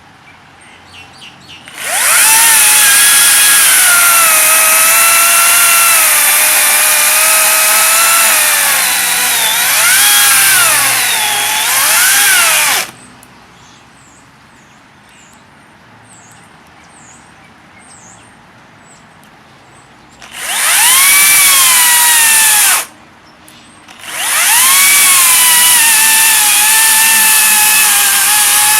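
Makita cordless electric chainsaw running in three bursts: a long one of about ten seconds, then two shorter ones. Its motor whine sags in pitch and rises again as the chain is loaded in the cut.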